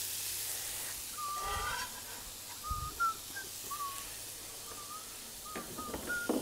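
Diced shallots sizzling in butter in a stainless steel pan, the sizzle fading after about a second. Short high whistling chirps repeat through the rest, with a dull thump and a few sharp clicks near the end.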